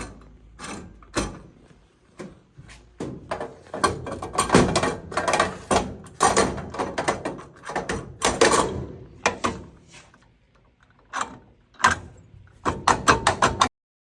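Metal knocks, clicks and rattles from the forced laundry coin box lock and its door being worked, with a quick run of clicks near the end.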